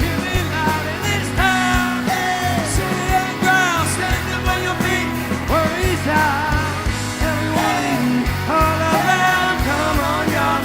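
Rock song with sung vocals over guitar, bass and drums.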